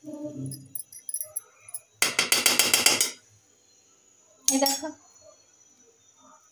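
Clinking and rattling of hard objects: a few light clinks, then a loud rapid rattle lasting about a second, and a shorter clatter about four and a half seconds in.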